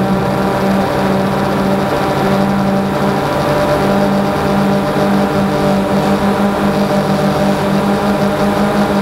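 DJI Phantom 2 quadcopter's motors and propellers humming steadily in flight, as picked up by the action camera mounted on the drone. A slight regular wavering comes in about halfway through as the motor speeds shift.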